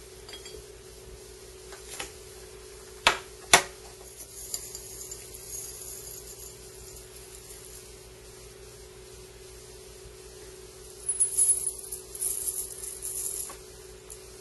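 Porcelain teaware clinking sharply twice, a few seconds in. Then a metal teaspoon scrapes dry loose-leaf tea in a ceramic tea caddy, and near the end the leaves are tipped into a porcelain teapot in a short flurry of rustling and small clinks.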